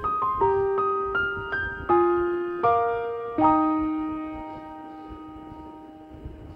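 Background music: a slow piano melody of single notes, about eight, ending on one long note that rings and fades out.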